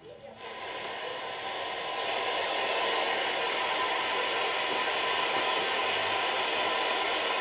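Old National Panasonic radio's speaker giving out only a steady hiss, with no station or programme coming through. The hiss comes in just after the start and swells to full over about two seconds.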